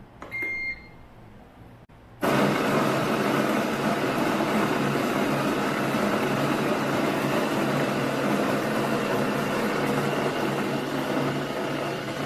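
A short electronic beep from the coffee maker's control panel as the start button is pressed. About two seconds later the Philips HD7762 Grind & Brew's built-in grinder starts up and runs steadily and loudly, its motor whirring as it grinds the freshly loaded coffee beans.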